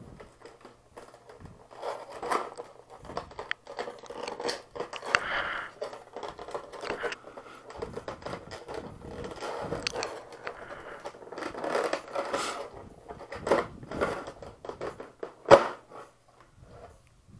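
Stiff clear plastic blister packaging crackling and scraping as it is handled and pried open, with irregular sharp clicks and snaps; the loudest snap comes near the end.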